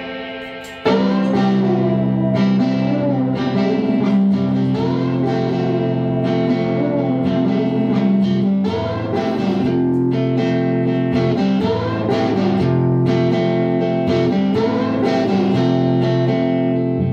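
Live rock band playing an instrumental passage: guitar with bending lead notes over sustained chords and regular drum hits. The sound dies away briefly, then the whole band crashes back in about a second in.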